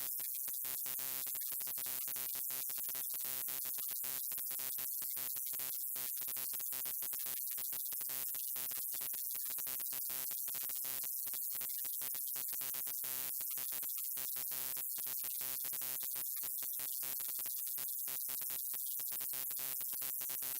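Neon sign buzzing: a steady electrical hum with a high hiss over it, cut by many very brief gaps.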